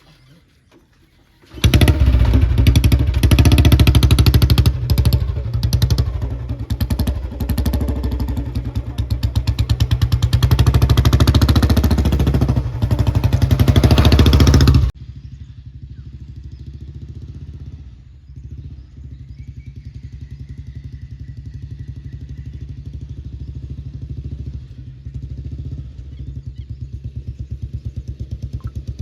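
Motorcycle engine running close by with a fast, even firing beat. About fifteen seconds in it cuts abruptly to a quieter, steady engine sound.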